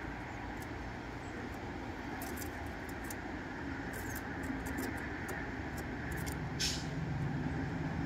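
Steady low rumble of outdoor background noise, of the kind made by distant traffic, with faint sharp ticks scattered through the middle and a brighter tick about six and a half seconds in.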